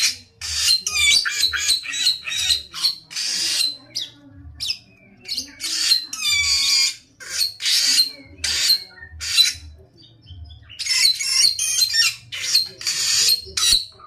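Caged samyong songbird singing in rapid, loud phrases of chirps and whistles, with short breaks between phrases and a longer pause about ten seconds in.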